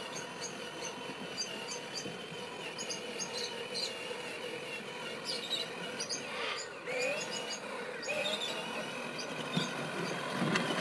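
Electric drive motor and gearbox of a child's battery-powered ride-on toy FJ Cruiser whining steadily as it drives over grass, with a short rising swoop in pitch about seven seconds in.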